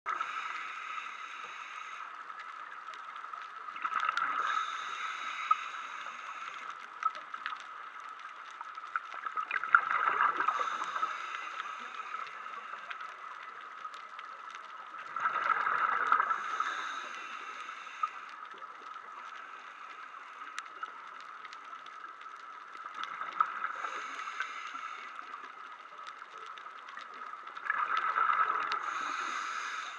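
Underwater scuba breathing through a regulator: a gurgling rush of exhaled bubbles five times, about every six seconds, with a steady hiss in between.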